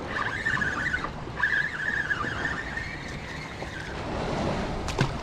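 Fishing reel whirring as a hooked mangrove snapper is fought in: a wavering whine that breaks off briefly about a second in, resumes, and fades out after about three and a half seconds. A sharp click near the end.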